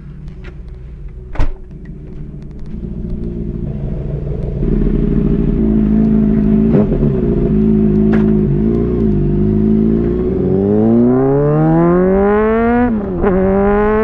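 Honda CBR600RR inline-four engine through a Hotbodies Stinger slip-on exhaust, running steadily at first and then revving up as the bike accelerates from about ten seconds in. A quick upshift about thirteen seconds in briefly drops the revs before they climb again. There is a sharp click about a second and a half in.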